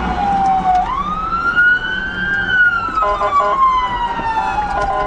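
Police car siren wailing: one slow sweep up in pitch and a long glide back down, over road and engine rumble. About three seconds in, a second, lower tone joins in short pulses.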